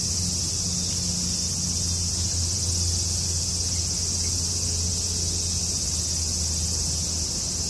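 A steady, high-pitched chorus of insects droning without a break, over a low steady hum.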